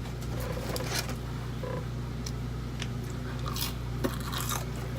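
Close-mic eating: someone biting into and chewing food, with small crunches and scattered clicks, over a steady low hum.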